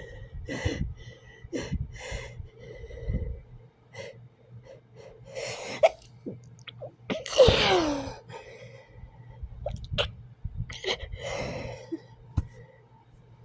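Person in an allergic sneezing fit: several sneezes with gasping breaths between them. The loudest comes about seven seconds in and ends in a falling cry.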